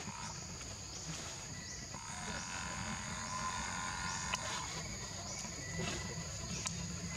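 Outdoor insect drone: a steady high-pitched hum with a short rising chirp that repeats about once a second, over a low steady rumble.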